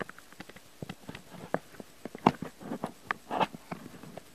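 Scattered light taps and clicks with a couple of short rustles, from cats moving about on a kitchen table close to the camera.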